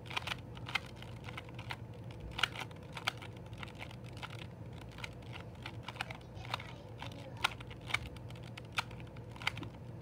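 A 2x2 Rubik's cube being turned by hand: quick plastic clicks and clacks as its faces snap round, irregular, two or three a second.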